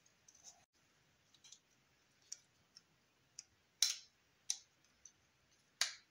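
Hard plastic parts of a 1/24 scale model car kit clicking and tapping against each other as gloved hands handle and fit them: a series of small, irregular clicks, the loudest coming in the second half.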